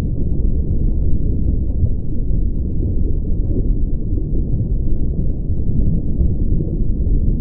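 Muffled, steady low rumble of water heard by a camera held underwater as the diver swims over kelp, with nothing sharper standing out.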